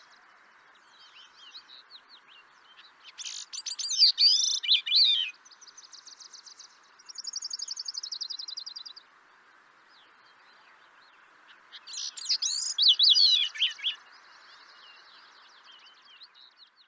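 A thrush singing: two loud, complex warbling phrases, about three seconds in and again about twelve seconds in, with fainter, even, rapid trills in between, over a steady background hiss.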